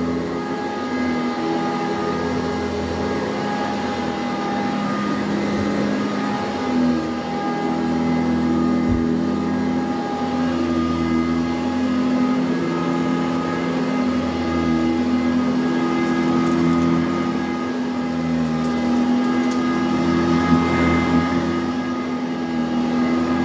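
2007 Eureka High Filtration commercial upright vacuum cleaner running steadily as it is pushed back and forth over carpet, its motor hum shifting slightly with each stroke.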